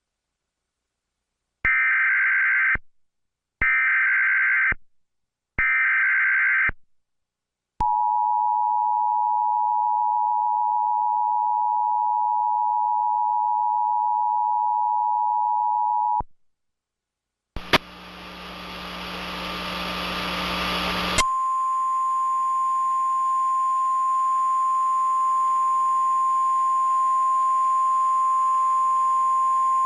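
Emergency Alert System tornado warning opening: three short screechy bursts of SAME header data, then the steady two-tone EAS attention signal for about eight seconds. After a brief gap, a burst of static gives way to the single steady NOAA Weather Radio warning tone.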